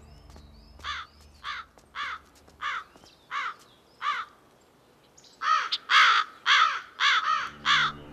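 Crow cawing: six short, evenly spaced caws, then after a brief pause a louder, quicker run of about seven caws.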